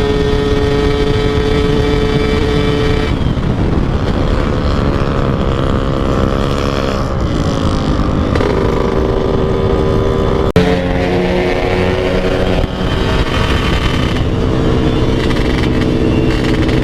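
Motorcycle engine running under way, its note holding steady and stepping in pitch several times, over heavy wind rush on the microphone. There is a sharp click about ten and a half seconds in, followed by a change in the engine note.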